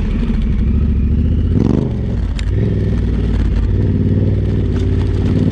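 Adventure motorcycle engine running under way on a dirt track, heard loud and close from on the bike, with a brief surge in the engine note about a second and a half in.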